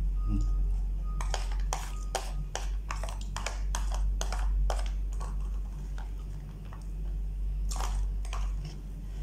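Spoon clicking and scraping against a black plastic takeout container while food is scooped from it. There is a quick run of sharp clicks for a few seconds, then scattered ones, with a louder click near the end.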